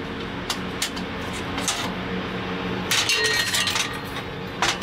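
Welded steel square-tube table frame being handled and turned over on a steel bench: a few light clinks, then a clatter of metal knocking with a brief ring about three seconds in, and another knock near the end. A steady low hum runs underneath.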